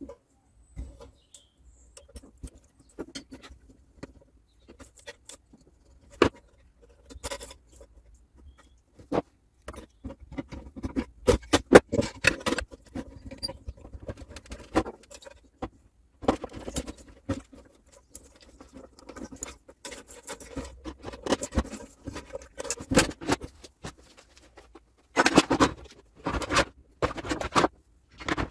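Irregular clicks, taps and scrapes of tools and metal parts being handled as a Gaggia Classic espresso machine is taken apart.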